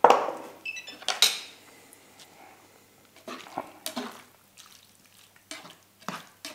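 Kitchen utensils clinking and knocking against a cooking pot and dishes: a string of separate knocks and scrapes, the loudest right at the start and about a second in, then lighter ones until the end.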